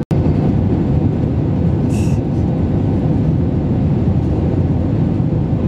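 Steady low rumble of engine and airflow noise inside the cabin of an Airbus A321-231, heard from a window seat over the wing. The sound briefly cuts out at the very start.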